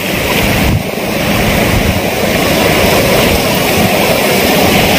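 Sea surf washing and breaking along the shore in a steady rush, with wind buffeting the microphone.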